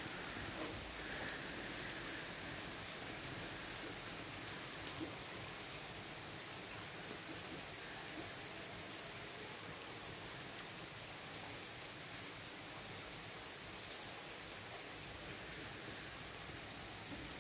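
Steady rain falling during a thunderstorm, with a few sharper drip ticks standing out, easing slightly.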